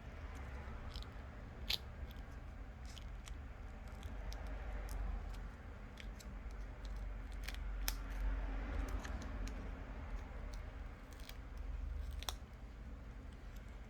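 Small sharp clicks and scratches at irregular intervals from a thin tool prying at the edge of an Apple Watch Series 5's heat-softened, glued screen, over a steady low hum.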